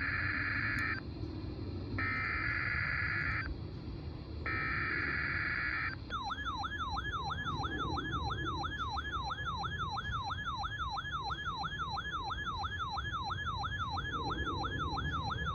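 NOAA Weather Radio emergency alert data header, the harsh buzzing bursts of the SAME code sent three times, opening a required weekly test. It is followed by a siren-like alert tone that sweeps up and down about three times a second for roughly nine seconds, over radio static.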